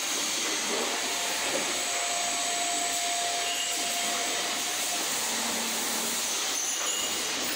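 Factory-floor din of automated gas-spring assembly lines: a steady, even rush of running machinery and air noise, with a faint held tone through the first few seconds.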